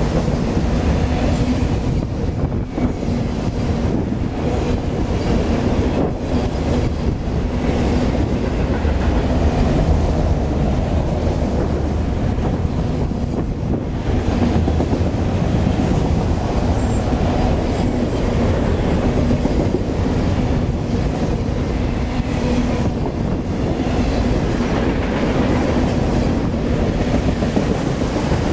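CSX autorack freight cars rolling past close by: a loud, steady rumble of steel wheels on rail with a faint steady hum and occasional clacks over rail joints.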